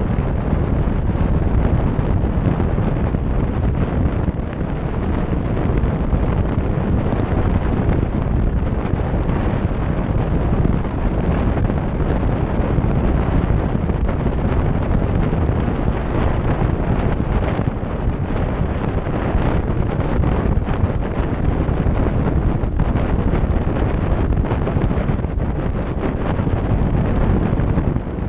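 Steady wind buffeting the microphone of a camera mounted on a moving motorcycle, mixed with the bike's running and road noise at cruising speed.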